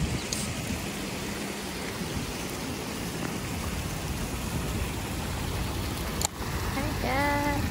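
Fountain jets splashing into a pool: a steady, rain-like wash of falling water. A sharp click comes about six seconds in, and a short pitched sound near the end.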